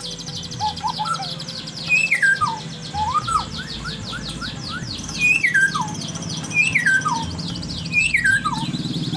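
White-rumped shama (murai batu) singing: a whistled phrase that steps down in pitch is repeated about four times, with rising whistled notes between, over a fast high trill.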